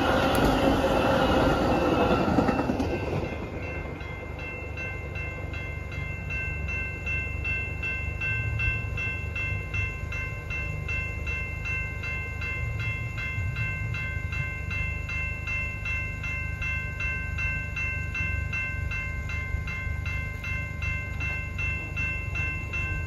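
A Metra bilevel commuter train passes over a grade crossing with wheel and rail noise, which fades away about three seconds in. After that the crossing's warning bell rings on in a steady, evenly repeating pattern while the gates are down.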